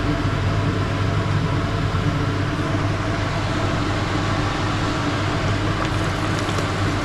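A machine in the workshop running steadily: a low motor hum with hiss over it. A few light clicks come near the end.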